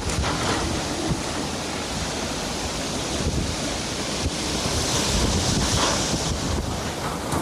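Strong typhoon wind blowing in gusts and buffeting the microphone, swelling a little about five seconds in.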